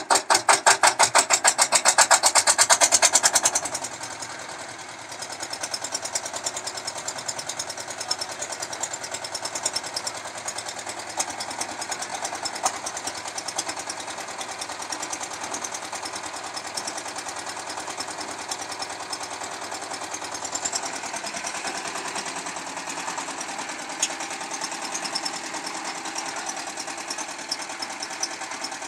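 Single-cylinder diesel engine of a concrete mixer running just after being hand-cranked into life: loud, rapid, even firing beats for the first few seconds, then dropping about four seconds in to a quieter, steady running.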